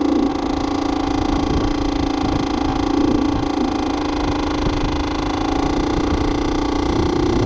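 Small two-stroke moped engine running at fairly steady revs under light throttle while riding, with a buzzy, even drone and wind rumbling on the microphone.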